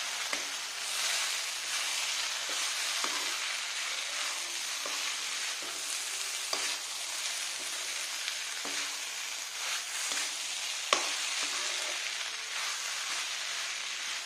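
Fried rice sizzling in a hot iron kadai while it is stirred and tossed with a steel spatula, the steady sizzle broken by scattered scrapes and clicks of the spatula against the pan, the sharpest clank about eleven seconds in.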